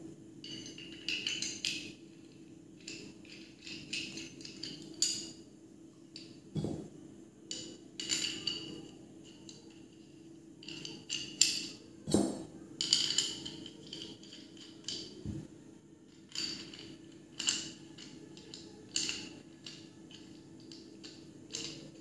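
Metal hex bolts and nuts clinking and rattling against the metal contact wire splice as they are pushed through its holes and turned by hand, in irregular clusters of clicks, with a few duller knocks about six and twelve seconds in.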